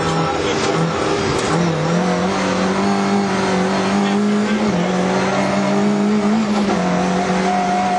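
Rally car engine running hard at high revs, heard from inside the cabin. The note holds steady and rises once about a second and a half in.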